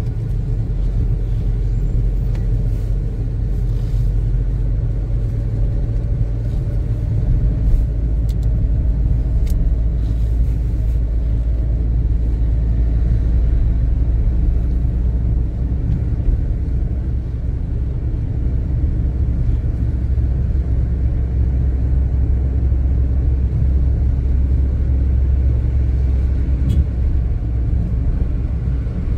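Steady low rumble of a car's engine and tyres heard from inside the cabin while driving, with a faint whine rising slowly in pitch partway through.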